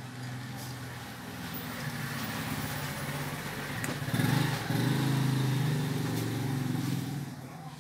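A motorcycle engine running steadily, getting louder about four seconds in and fading near the end.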